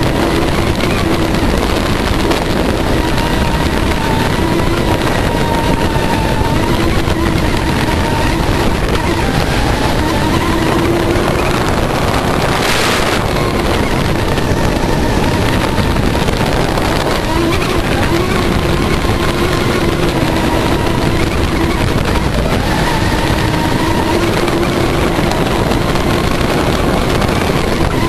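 Onboard a 10S electric RC offshore race boat running at speed: a steady rush of water spray and wind over a high motor whine that wavers up and down with throttle. About halfway through, a brief louder burst of spray.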